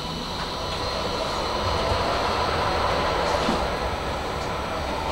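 Tram running along its track, heard from inside the car: a steady rumble of wheels on rails with faint steady whining tones, swelling a little in loudness around the middle.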